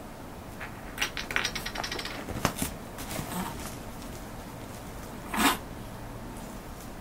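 A kitten scrabbling at a disposable pet pee pad: crinkling, scratchy rustles of the paper-and-plastic sheet in quick bursts, then one short, louder rustle about five seconds in.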